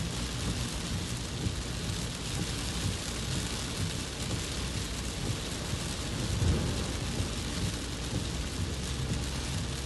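Heavy hurricane rain beating on a moving car's windshield, heard from inside the car as a steady hiss over a continuous low rumble. A brief louder low thud comes about two-thirds of the way through.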